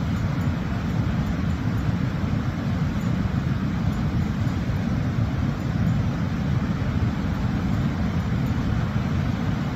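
Steady low rushing rumble of a waterfall, even and unbroken.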